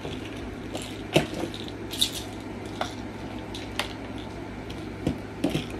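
A few light clicks and taps, scattered irregularly, over a steady low hum.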